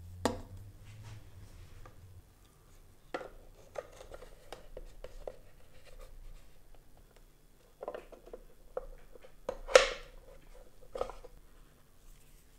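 Workshop handling noises: a few sharp knocks and taps of small wooden parts and a plastic glue bottle being set down, picked up and fitted on a wooden tabletop and into a wooden box. The loudest knock comes about ten seconds in.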